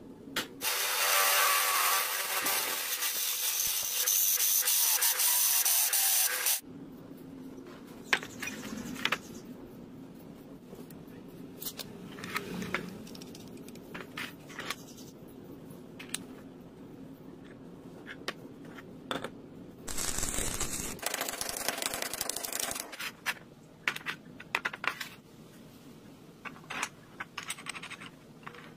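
Small steel parts clinking, tapping and scraping as they are handled, broken twice by a loud, even hissing noise: about six seconds of it near the start and about three seconds later on.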